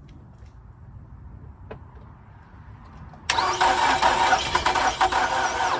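2009 Nissan Altima 2.5 S's starter cranking the four-cylinder engine. It cuts in suddenly about three seconds in and turns over steadily without the engine catching: a no-start that turns out to be a run-down battery.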